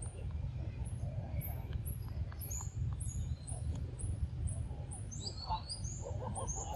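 Forest ambience: a bird's short, high-pitched chirps repeating about twice a second, each sliding down in pitch, over a steady low rumble.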